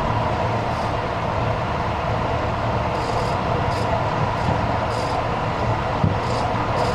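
Tobu 50000-series electric commuter train running between stations, heard from inside the passenger car: a steady rumble of wheels on rail with faint scattered clicks.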